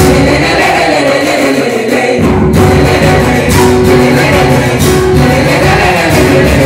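Mixed chorus of men and women singing together to acoustic guitar accompaniment, a murga-style vocal group; the bass drops out briefly and comes back about two seconds in.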